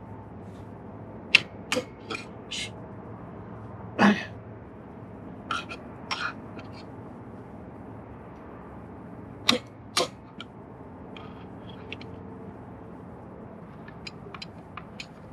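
Irregular sharp taps and clinks of a hammer and tools on the metal pin of an anchor bow roller, about ten in all and unevenly spaced. A steady low hiss runs underneath.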